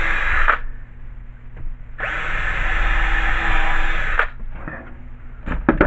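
Power drill boring a pilot hole in a small board clamped in a vise, to keep the board from splitting. It runs until about half a second in, stops, then runs again steadily for about two seconds.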